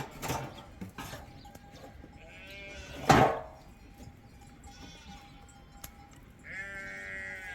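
Sheep bleating several times, the last call longer, with a sudden loud sound about three seconds in.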